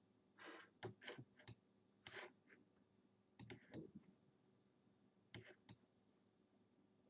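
Faint, scattered clicks and taps of a computer mouse and keyboard in use, about nine at irregular intervals with a couple of short scuffs.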